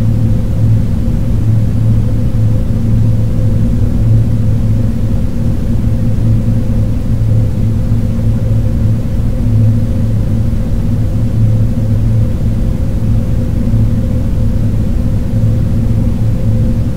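Electronic drone soundtrack: a steady, loud low rumble with a fainter held hum above it, with no beat and no sudden events.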